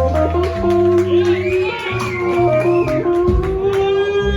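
Live blues band playing a blues in C, with a long note held over a moving bass line.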